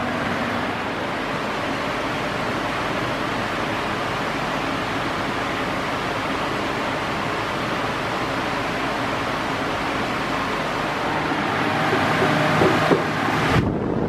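Britânia Mega Turbo 40 pedestal fan (130 W, 40 cm, nearly straight blades) running at top speed: a loud, steady rush of air with a faint low hum underneath. The rush swells slightly near the end, then dips sharply.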